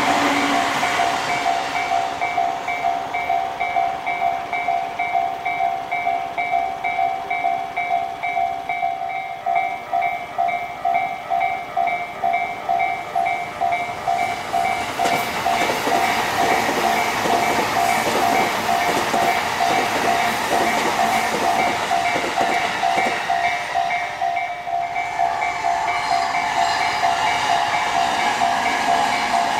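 Japanese railway level-crossing alarm ringing a steady, rapidly repeating electronic ding. A passing train's wheels clatter over the rails from about halfway through, and another train comes through near the end.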